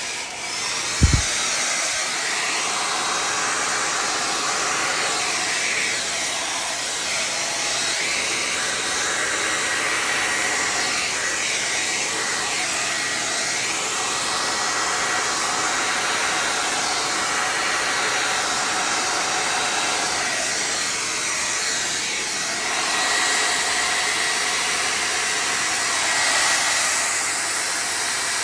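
Handheld hair dryer blowing steadily on its low setting, its air rushing over wet acrylic paint, with a faint steady whine. A short thump about a second in.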